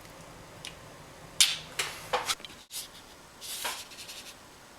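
A few light clicks or knocks, three of them about a second and a half to two seconds in, then a short rustle, like objects being handled.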